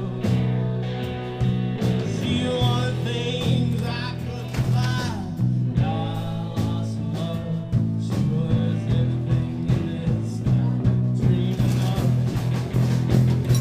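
Live band playing blues rock: electric guitar over a steady bass line, with drums keeping the beat.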